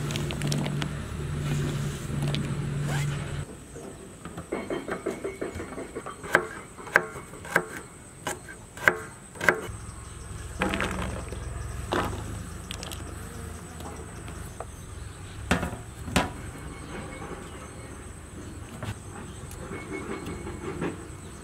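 Kitchen knife chopping vegetables on a white cutting board: a run of sharp chops about two a second, then a few single knocks. A steady low hum sits under the first few seconds.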